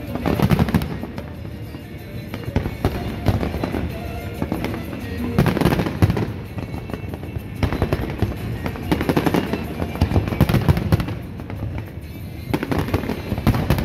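Fireworks display: many shells bursting and crackling together in dense, loud volleys that come in waves every few seconds, with lighter popping between them.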